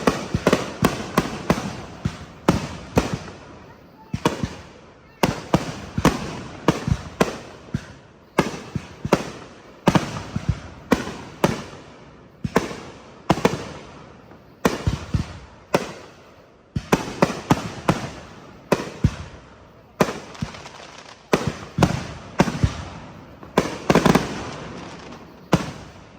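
Fireworks going off in a rapid, irregular barrage of sharp bangs, one to three a second, each trailing off in an echoing rumble. The bangs stop at the very end.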